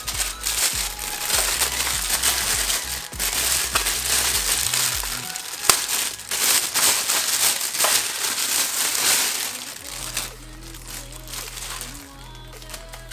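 Thin clear plastic bag crinkling and crackling loudly as it is pulled off a satellite speaker, stopping about ten seconds in. Background electronic music plays underneath.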